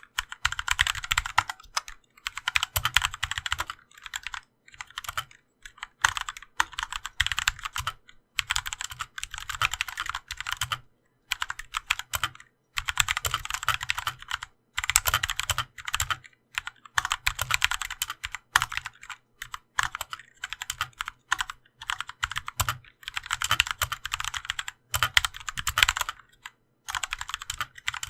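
Typing on a GMMK Compact mechanical keyboard fitted with Kailh Pro Purple tactile switches and dampener O-rings: fast runs of keystroke clacks in bursts of one to two seconds, broken by short pauses.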